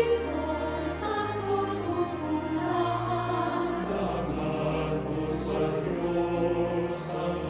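Choir singing a slow hymn-like song with held notes over an instrumental accompaniment with a steady bass line.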